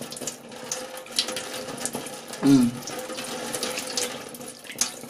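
Tap water running into a stainless steel sink, splashing as hair is rinsed under it.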